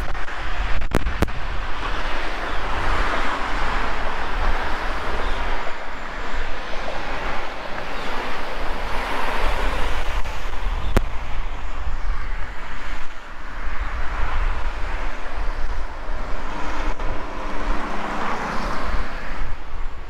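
Wind rumbling on the microphone over the hiss of road traffic, which swells and fades every few seconds as vehicles pass on a bridge.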